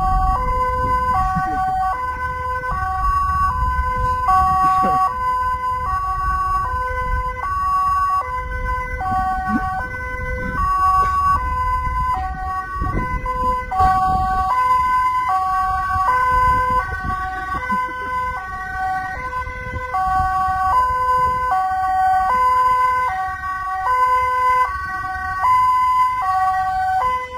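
Electronic siren-like tone stepping between a few pitches, changing about twice a second in a repeating pattern, over the low rumble of wind and engine from a moving motorcycle.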